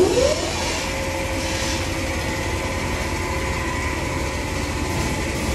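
A motor whines up in pitch at the start, then runs with a steady, even hum over a low rumble.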